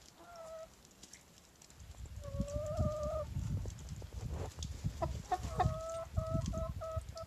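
White Leghorn chickens calling softly: a short note at the start, a longer drawn-out note about two seconds in, and near the end a quick run of short clucks, with low rumbling noise underneath.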